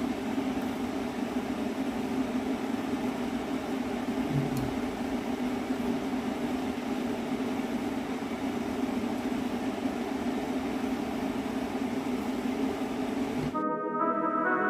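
Air conditioner running with a steady hum and rush of air. Brass music starts near the end.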